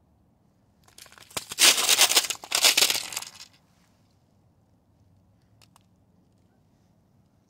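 A loud, close crackling and crunching noise that starts about a second in and lasts about two and a half seconds, followed by a couple of faint clicks.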